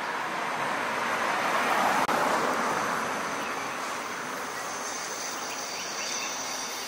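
A car driving past on the street, its tyre and engine noise swelling to a peak about two seconds in and then fading away.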